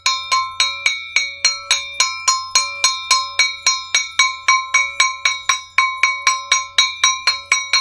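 Metal zalar (jhalar), a small hammered hand gong of the kind played at aarti, beaten fast with a wooden stick at an even pace of about four strokes a second. Each stroke rings with several clear tones that overlap into the next.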